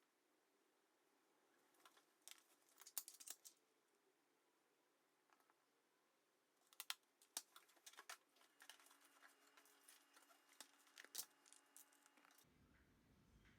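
Faint clicks, taps and light crinkling from small craft materials being handled, in two short clusters, a few seconds in and again later.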